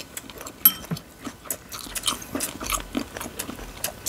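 Close-up chewing and crunching of seasoned chicken feet and green mango salad: many small, crisp crunches with no steady beat.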